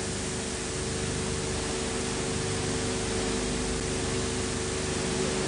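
Steady hiss with a faint steady hum underneath, the background noise of an old recording; no other sound stands out.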